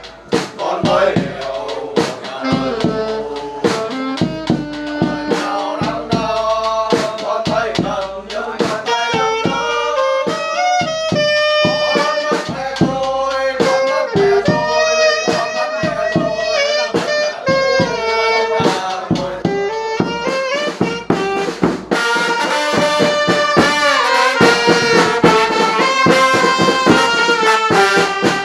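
Brass band music: a horn melody over a steady drum beat, growing fuller and louder about three quarters of the way through.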